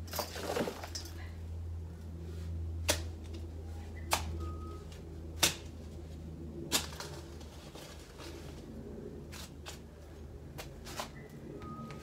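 Hand digging in garden soil: a series of sharp clicks and knocks a little over a second apart from a garden tool striking the ground, with rustling and scraping of soil and leaves. A low steady hum underneath fades away about halfway through.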